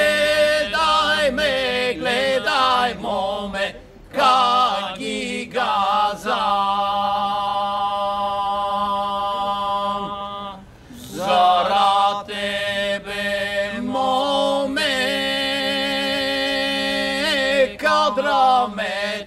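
Three male voices singing an unaccompanied Bulgarian folk song: an ornamented melody over a steady held drone, with long sustained notes. The singing breaks briefly for breath about four seconds in and again about eleven seconds in.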